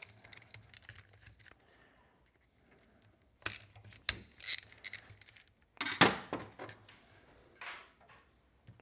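Hand screwdriver backing out the small screws of a Yamaha Big Bear ATV carburetor's top cover, with metal clicks, scrapes and rattles as the screws come loose and are set down. The loudest clatter comes about six seconds in.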